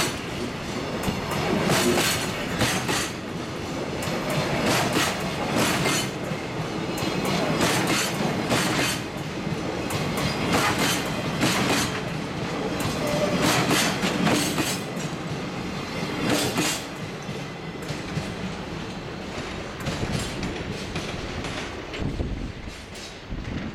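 Container freight wagons rolling past on jointed track, their wheels clacking in repeated sets over the rail joints over a steady rolling rumble. The clacks die away after about three quarters of the way through as the last wagon passes and the train moves off.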